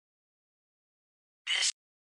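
Silence broken about a second and a half in by one short, clipped, thin-sounding fragment of sound from the Necrophonic ghost-box app, lasting about a quarter second; it is captioned as the word 'This'.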